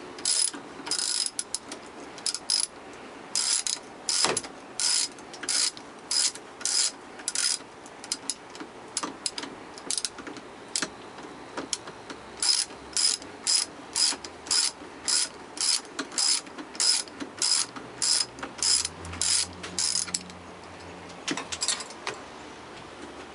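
Hand socket ratchet clicking in short back-and-forth strokes, about two a second, as the nut on the bolt joining the tie rod to the steering arm is undone. The strokes thin out for a few seconds midway and stop about twenty seconds in.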